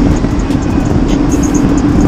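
Riding noise on an e-bike along a trail: a loud, steady rumble of wind and tyres over the ground, with a steady low hum and scattered light clicks or rattles.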